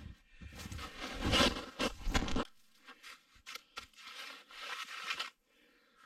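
Snow crunching and scraping as it is packed into gaps by hand or shovel: one long burst of crunching, then several shorter ones.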